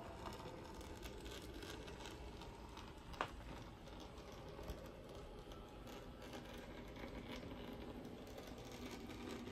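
Faint clicking and rattling of a small HOe narrow-gauge model diesel locomotive pulling coal wagons along its track, with one sharper click about three seconds in.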